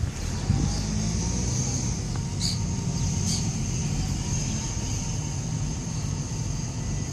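Car running at low speed, heard from inside the cabin: a steady low rumble of engine and road noise with a steady high hiss over it. Two brief ticks come near the middle, under a second apart.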